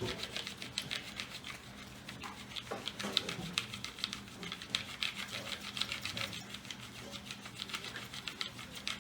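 Wooden hand-drill spindle twirled in a hearth board for a friction-fire ember: a fast, irregular clicking and rubbing of wood on wood.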